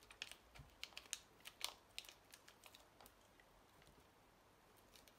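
Light, irregular clicks and taps of a plastic pry tool and gloved fingertips pressing new screen adhesive down onto an iPhone 11's frame, a dozen or so quick ticks over the first three seconds.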